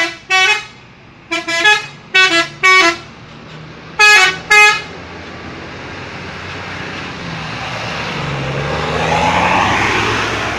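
Telolet horn, a multi-tone musical air horn, sounding a string of short paired toots that change pitch. After the last toot, the vehicle's engine and road noise swell to a peak near the end and begin to fade, as it passes by.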